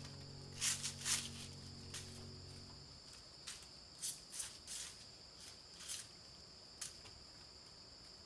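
Steady high-pitched drone of insects in the forest, with a scattering of short sharp clicks, the loudest about a second in. Soft background music fades out about three seconds in.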